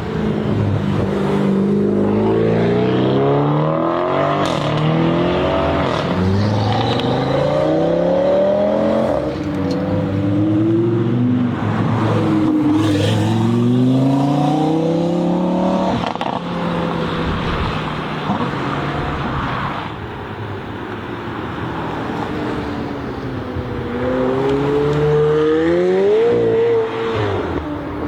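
Supercar engines accelerating hard, the pitch repeatedly climbing and then dropping back as they change up through the gears, with a steadier stretch in the middle before one more rise near the end.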